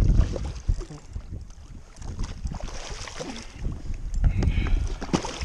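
Wind rumbling on the microphone while a hooked red drum thrashes and splashes at the surface, with a burst of splashing near the end.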